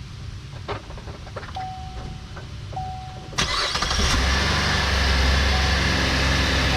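2013 Chevy Impala's V6 engine cranking and starting about halfway through, then settling into a steady idle. It is preceded by a few clicks and two short chime tones.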